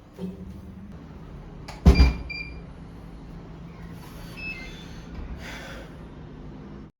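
A loud thump about two seconds in, followed by short high metallic clinks, over a steady low hum. The sound cuts off abruptly near the end.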